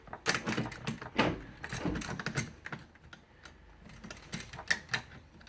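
Vise-grip locking pliers being clamped onto an aluminum window frame: irregular metallic clicks and knocks, busiest in the first couple of seconds, then sparser, with a few sharp clicks near the end.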